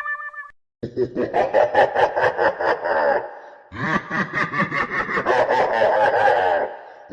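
Laughter sound effect: two bursts of rapid, pulsing laughter, the first starting about a second in and the second after a short pause.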